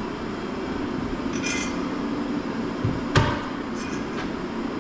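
Steady low machine hum with a single sharp knock, like a hammer or mallet tap, about three seconds in.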